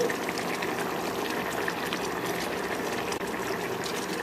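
Vegetable curry simmering in a pan: a steady bubbling with many small pops as the gravy heats up toward the boil.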